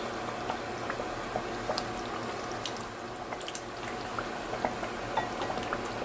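Thick tomato-and-pepper stew simmering in oil over a low flame, bubbling steadily with many small scattered pops. The oil has risen to the top as the water from the blended tomatoes cooks off, the stage at which the stew is fried down and ready for seasoning.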